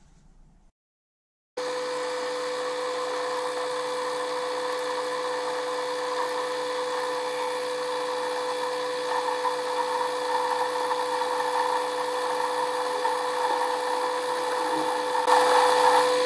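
Metal lathe running and turning steel: a steady motor tone over a constant cutting noise, which gets louder near the end.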